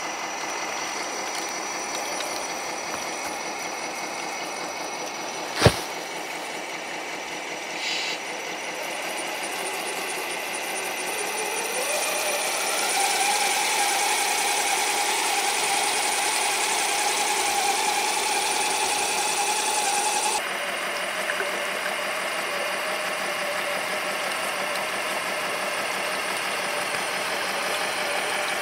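Electric drivetrain of a 1/14-scale RC semi truck, four brushed motors through two transmissions, whining steadily as the tracked truck crawls over creek ice, with one sharp snap about six seconds in. Partway through, the motor whine rises in pitch and holds, then drops suddenly to a lower steady whine.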